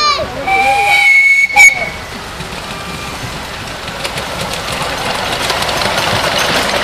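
A 7¼-inch gauge miniature steam locomotive sounds its whistle, one steady high note lasting about a second and a half, with a sharp bang near its end. Then the locomotive and its passenger carriages pass close by, a growing clatter of wheels on the rails.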